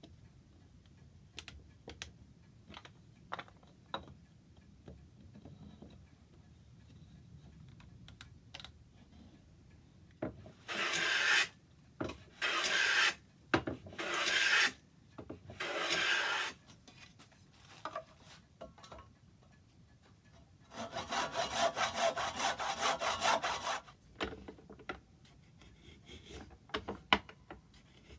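A hand tool worked over wood in strokes: scattered light knocks and clicks, then four long rubbing strokes, and later a quicker run of short strokes lasting about three seconds.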